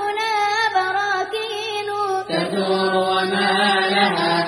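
Unaccompanied Arabic nasheed: a voice sings long, ornamented held notes with a wavering pitch over a steady low vocal hum, with no clear words.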